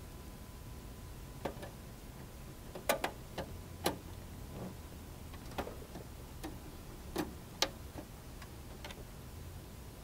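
Hand screwdriver driving the power supply's mounting screws into the back of a PC case: about a dozen light, irregular clicks and ticks.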